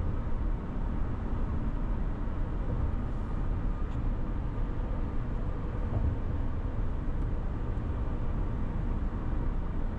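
A car cruising at freeway speed, heard from inside: a steady low rumble of road and engine noise.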